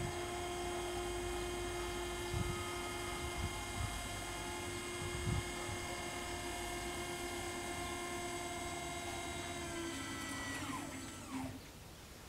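Level-crossing barrier drive motors raising the two booms: a steady electric whine that winds down in pitch and stops about ten to eleven seconds in as the booms reach upright.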